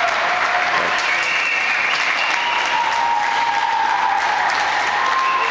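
Spectators applauding steadily, with a few drawn-out calls heard over the clapping.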